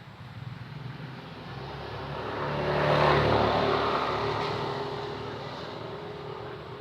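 A motor vehicle passing by, its engine growing louder to a peak about three seconds in and then fading away.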